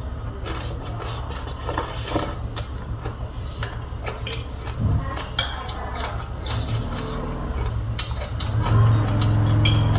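Close-miked eating: a person slurping and chewing rice noodles with shrimp, with wet mouth smacks and a spoon and fork clicking against the plate, over a steady low hum.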